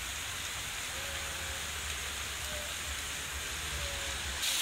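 Many thin jets of water from a wall fountain's overhead pipe splashing steadily onto the stone and into the basin, a rain-like hiss that grows louder and brighter near the end.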